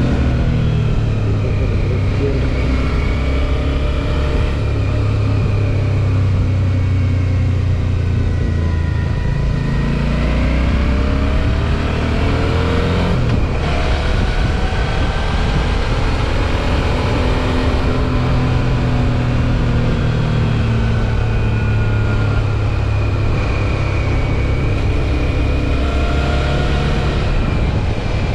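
Suzuki V-Strom 650 XT's V-twin engine running while riding. Its pitch falls and rises several times as the bike slows and speeds up, with a brief break about halfway through, like a gear change.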